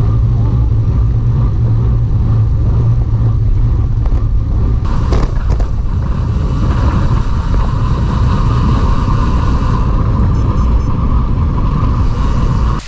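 Wind rumbling heavily over the microphone of a camera riding along on a moving road bicycle, with steady road and tyre noise underneath; it cuts off abruptly at the end.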